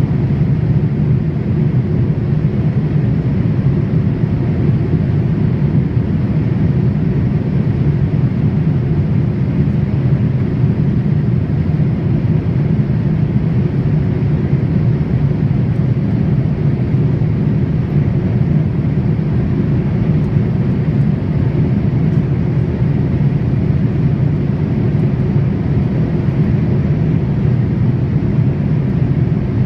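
Boeing 787 airliner cabin noise in flight: a steady, even low rumble of engines and airflow heard from a window seat.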